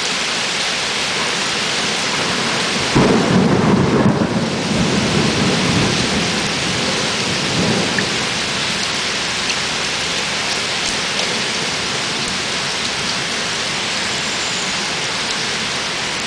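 Heavy cloudburst rain pouring steadily onto flooded paving. About three seconds in, a sudden loud clap of thunder rolls on as a low rumble for several seconds before fading.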